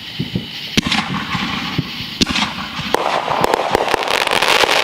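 Backyard consumer fireworks going off: scattered sharp pops, then about three seconds in a dense, continuous crackling hiss sets in.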